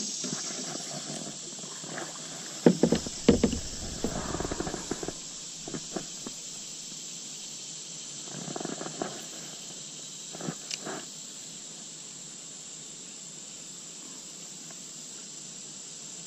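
Steady buzzing of an insect chorus, with a few sharp knocks and rustles of handling in a plastic kayak, mostly a few seconds in and again around eight to eleven seconds.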